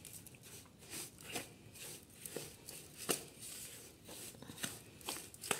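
Metal ladle stirring a dry, grainy gujiya filling of mawa, roasted semolina, grated coconut and dry fruits in a stainless steel bowl: faint, irregular scraping and gritty rustling strokes.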